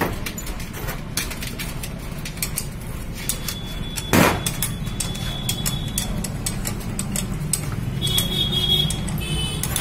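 Metal clinks and taps of hand tools and parts being handled on a manual gearbox casing, with one loud metallic clank about four seconds in, over a steady low hum.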